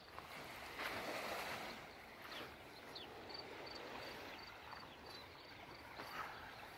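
Faint seaside ambience: small waves gently lapping on a sandy shore, with a soft swell of wash about a second in. A faint high chirp repeats a few times a second for a couple of seconds midway.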